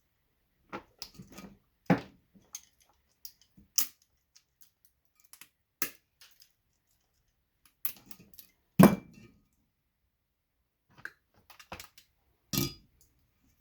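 Irregular small plastic and metal clicks and clinks of pliers and cutters working bulbs and their brass sockets out of a strand of Christmas lights, with a heavier knock about nine seconds in.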